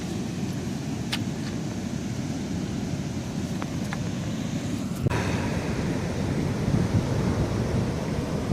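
Wind buffeting the microphone over the wash of sea surf, with a few faint clicks. About five seconds in the sound changes abruptly and the wind rumble gets louder.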